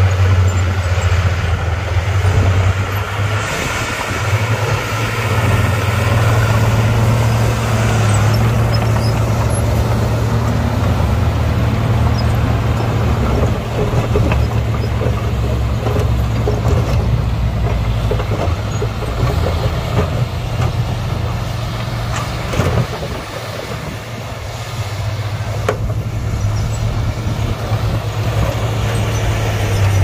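Heavy diesel engine of earthmoving machinery running steadily with a low drone, easing off briefly a little past two-thirds of the way through.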